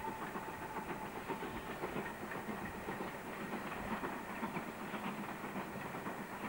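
Steam locomotive working hard as it hauls a passenger train, its exhaust chuffing in a dense, steady rush mixed with rail noise, heard from a distance. A whistle note dies away at the very start.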